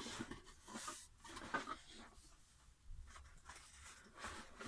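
Faint scraping and rustling of a cardboard box being opened by hand: flaps pulled open and rubbing, then hands rummaging inside the box.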